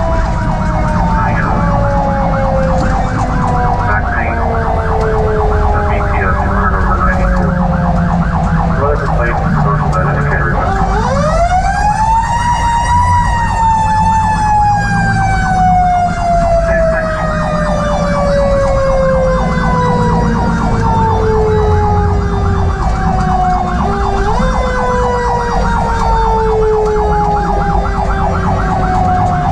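Federal Q mechanical coaster siren on a fire engine, slowly coasting down in pitch, wound up sharply about eleven seconds in to a peak and then left to coast down again for a long time, with a short blip of wind-up near the end. The fire engine's engine and road noise run underneath.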